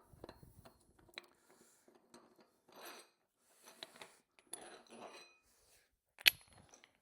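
Light handling noises: scattered faint clicks and rustles, several short hissing bursts in the middle, and one sharp metallic clink near the end.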